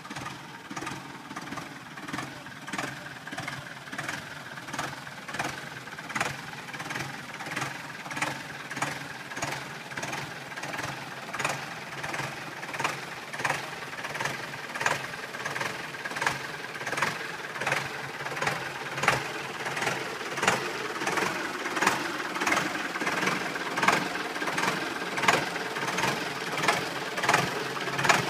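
Deutz-Fahr D 7807 C tractor's air-cooled diesel engine running as the tractor drives slowly around, with a regular knock about three times every two seconds over the engine sound. It grows louder as the tractor comes close.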